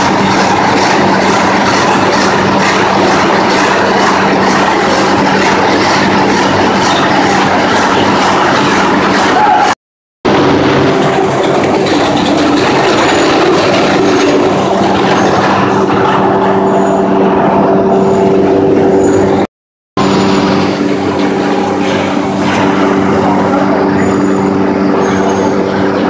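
Sawmill machinery running loud and steady: a steady hum of motors under a clattering rattle of conveyors. The sound cuts out briefly twice, about ten seconds in and again near twenty.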